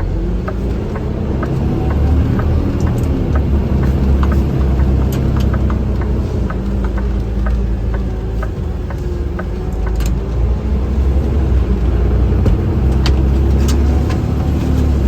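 Vehicle driving, heard from inside the cab: a steady low rumble of engine and road noise, with faint regular ticks, about two a second, through the first half.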